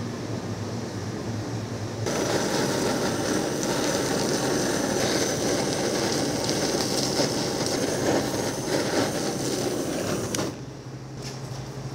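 Kitchen blowtorch flame searing the skin of a fish fillet on a wire rack: a steady rushing hiss that starts suddenly about two seconds in and cuts off about ten seconds in. A low steady fan hum lies under it.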